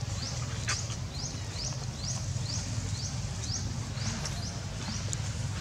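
Short high chirps, each rising in pitch, repeated about twice a second over a steady low rumble, with a faint crackle about a second in.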